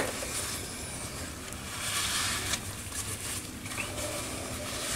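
Cloth rag rubbing over a cast-iron engine cylinder block, wiping off valve-lapping compound: soft, uneven swishing and rustling.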